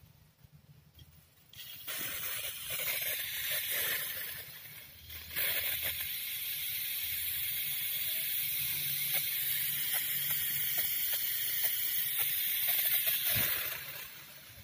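Aerosol throttle-body/fuel-injection cleaner spraying in two long hisses: one of about three seconds starting near two seconds in, then after a brief break a steady one of about eight seconds that stops shortly before the end.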